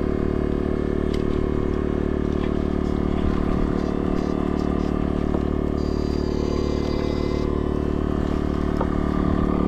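Steady, even-pitched electrical buzz of a backpack electrofishing machine (a 22-FET inverter shocker) running continuously, with light scraping and clatter over it.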